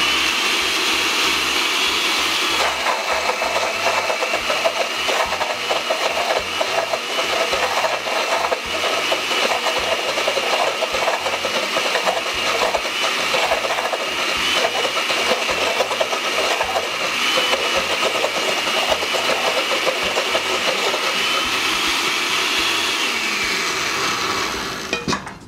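Countertop blender with a glass jar running steadily, grinding fresh corn kernels into a thick masa with no liquid added, a heavy load for an ordinary blender, while a spatula is worked down through the lid to keep the mix moving. Kernels knock against the jar throughout. Near the end the motor winds down and stops.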